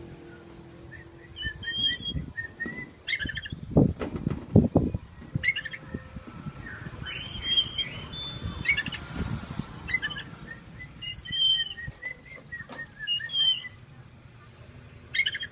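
Oriental magpie-robin in a cage giving repeated short, high chirping phrases, the unusual call it is kept for here. A few loud flutters or knocks come about four to five seconds in.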